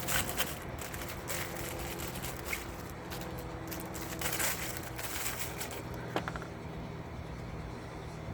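A few light clicks and scrapes of the plastic oil filter housing cap, old cartridge and new O-ring being handled, over a steady low hum.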